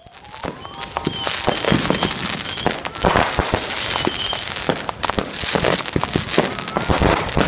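Fireworks and firecrackers going off in rapid succession: a dense stream of sharp bangs over steady crackling, with a short rising whistle in the first second.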